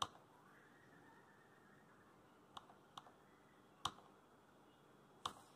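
Near silence broken by five scattered, sharp computer mouse clicks.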